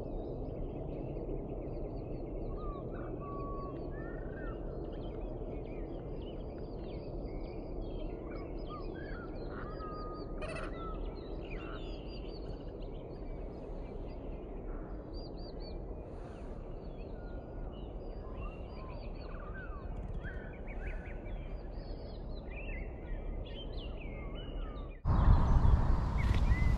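Small birds singing and chirping, many short warbles over a steady low background hiss. Near the end it cuts suddenly to a much louder rushing noise.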